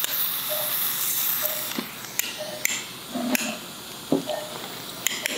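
Sharp metallic taps, a few irregular strikes from about two seconds in, of a mallet driving an osteotome through the nasal bone during a lateral osteotomy. Under them an operating-room patient monitor beeps steadily about once a second over a steady hiss.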